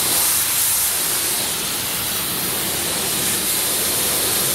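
Self-service car wash high-pressure wand spraying a steady rinse jet of water, a continuous loud hiss, as it blasts degreaser and grime off a bicycle.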